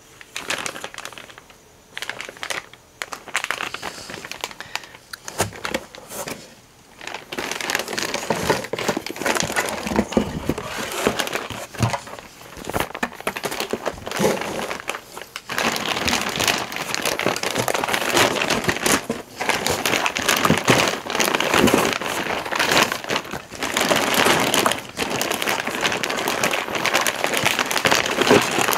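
Clear plastic parts bags crinkling and rustling as they are handled and rummaged through in a cardboard box, with many small crackles and clicks. Sparse at first, then near-continuous from about seven seconds in.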